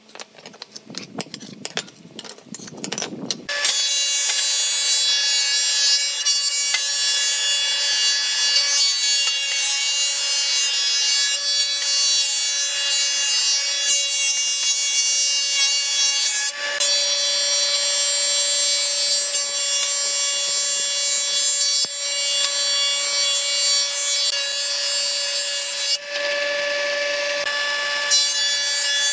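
A few light knocks of pallet wood being handled, then a combination jointer-thicknesser starts planing a pallet board through its thicknesser. It makes a loud, steady whine with a rushing cutting noise that dips briefly twice.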